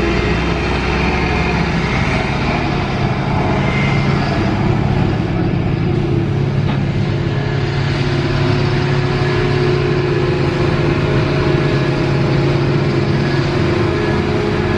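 Palesse KVK-800 self-propelled forage harvester and a Belarus tractor running together while harvesting grass, a steady engine drone of several tones. The low tones shift slightly about two to three seconds in.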